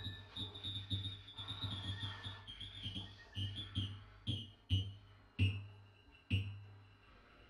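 Free-improvised music from saxophone, bowed double bass and electronics: a thin, high, wavering tone over a low pulse, broken in the second half by four sharp knocks that grow sparser.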